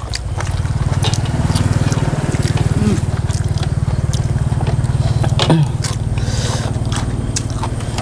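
A steady low rumble that eases off about six seconds in, with scattered clicks and crunches of people eating blood cockles and other seafood.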